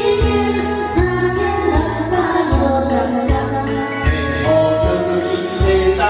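Karaoke duet: a man and a woman singing through microphones over a backing track with bass and a steady beat.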